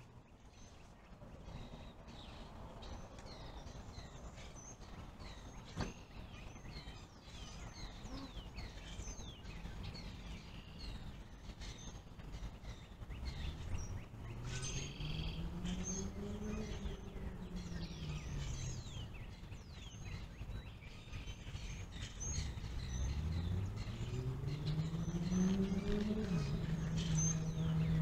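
Many small birds chirping and calling over a steady low rumble of road traffic. In the second half a vehicle engine rises and falls in pitch twice, settling into a steady hum near the end.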